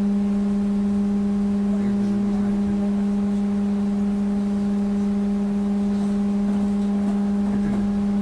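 Steady electrical hum from a trolleybus standing in slow traffic: one constant low tone with a ladder of overtones, unchanging in pitch, over a faint low rumble.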